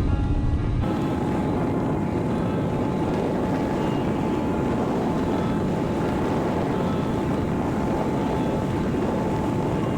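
Boat under way: steady engine noise with wind on the microphone and a faint steady whine, after a cut about a second in.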